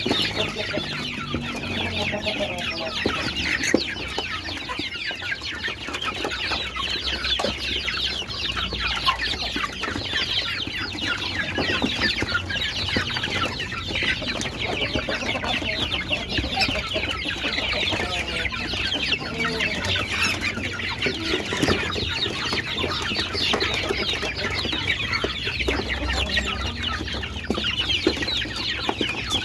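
A flock of young native (kampung) chickens crowded at a feeder, cheeping and clucking continuously in a dense, high-pitched chorus.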